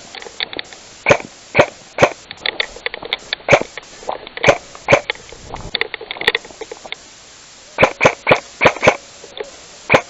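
Airsoft guns firing: sharp pops as irregular single shots, with a quick string of about six shots near the end.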